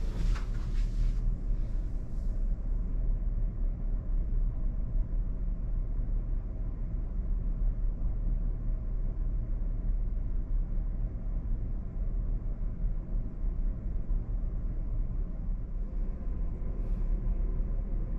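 Steady low rumble and hum of a large car ferry's machinery, heard inside the passenger accommodation. There is a brief rustling noise in the first second.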